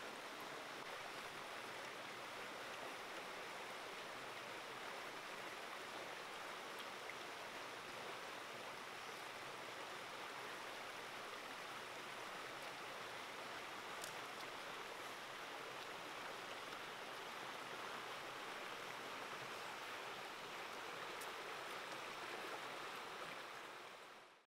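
Shallow stream running over rocks, a steady rushing of water with a few faint ticks, fading out near the end.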